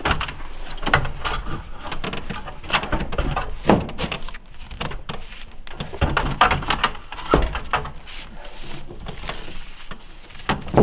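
Irregular knocks, taps and scraping as a long white ceiling panel is lifted and pushed up into place against the wooden ceiling framing.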